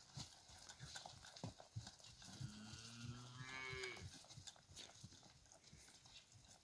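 A cow mooing once: a long, low call of about two seconds a little past the middle.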